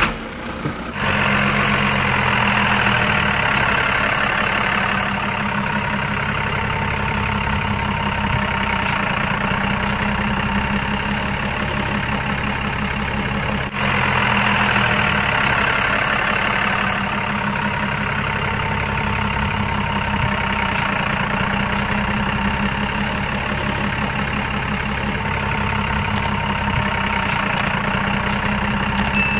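Steady truck engine sound at idle, a recorded engine sound effect rather than the toy itself, with a brief break about fourteen seconds in.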